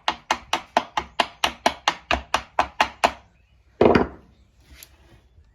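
A hammer tapping on a KX85 engine's crankcase, a quick even run of about five light taps a second for three seconds, followed by one louder knock about four seconds in. The case halves are stuck together and are being knocked apart without a case splitter.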